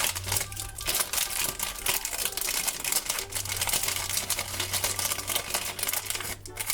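Foil blind-bag packet crinkling and rustling in the hands, a dense run of irregular crackles as the bag is opened and its contents are pulled out.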